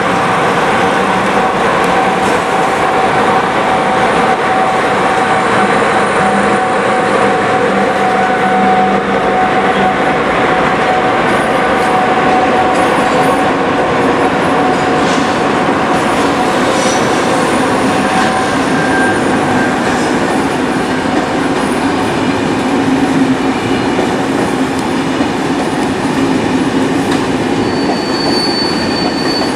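SNCF passenger coaches in TER Alsace livery rolling past through the station, their wheels running on the rails with a steady squeal for the first half or so and a brief higher squeal near the end.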